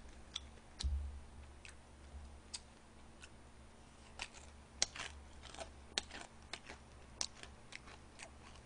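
A person chewing fried food close to a microphone: faint, irregular crisp crunches and mouth clicks over a low steady hum, with a dull bump about a second in.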